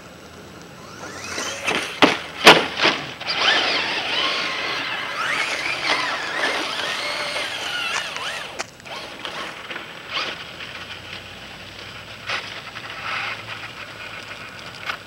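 Radio-controlled truck's motor whining loudly, its pitch rising and falling as it accelerates, with the tyres spinning and scrabbling on loose gravel and sand and sharp clicks of stones. It eases off to a quieter whine about halfway through.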